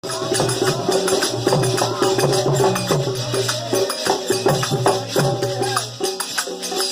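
Faag folk music playing, with frequent percussion strikes over held low notes.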